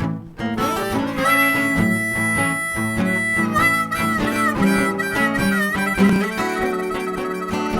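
Blues band playing an instrumental break: a harmonica solo with long held and bent notes over guitar accompaniment.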